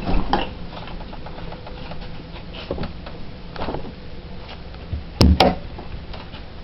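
Objects being handled: scattered light knocks and clicks, with two loud sharp knocks in quick succession about five seconds in.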